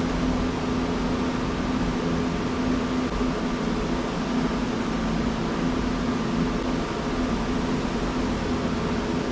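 Steady machine running with a constant low drone and an even noise, unchanging throughout.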